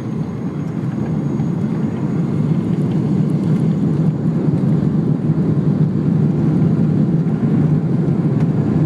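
Boeing 777 jet engines in reverse thrust during the landing rollout, heard from inside the cabin: a loud, low rushing noise that builds over the first few seconds and then holds steady.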